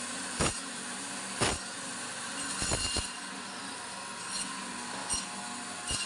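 Bone-cutting machine, a meat band saw, running with a steady motor hum, broken by several sharp knocks at irregular intervals.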